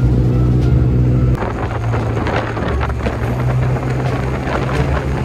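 Yamaha T-Max 530 maxi-scooter's parallel-twin engine running steadily while riding, with wind buffeting the microphone. The sound changes abruptly about a second and a half in, when the gusty wind noise becomes the louder part.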